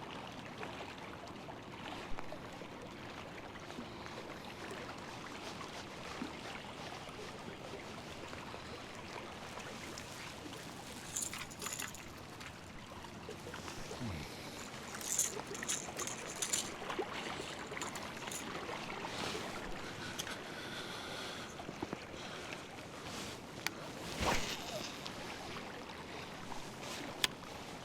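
Steady outdoor water noise, with scattered light clicks and knocks in bunches several times.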